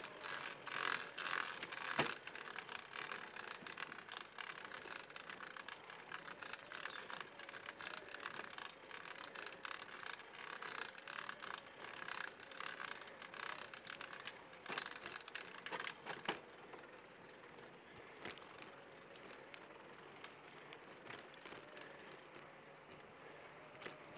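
Custom tadpole recumbent trike rolling along a concrete path: tyre noise with a fast clicking rattle from the trike, and a few sharper knocks over the path's joints. The rattle eases about two-thirds of the way through.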